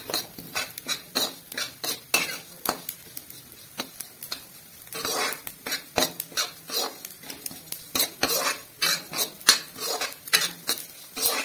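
Metal spatula scraping and clinking against a metal kadhai while stirring carom seeds (ajwain) as they roast, in quick, irregular strokes.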